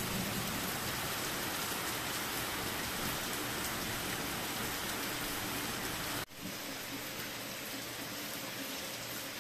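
Steady rain falling on muddy, waterlogged ground and trees, an even hiss. It cuts out for an instant a little over six seconds in and resumes slightly quieter.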